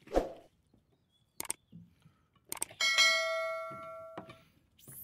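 Subscribe-button sound effect: a couple of sharp clicks, then a bell chime of several bright tones that rings for about a second and a half before fading. Near the start, a single knock of a knife on a plastic cutting board.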